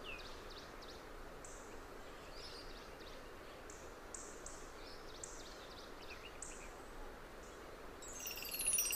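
Faint outdoor ambience with a steady hiss and scattered short, high bird chirps, some sliding down in pitch. Near the end a run of chiming, descending music tones comes in.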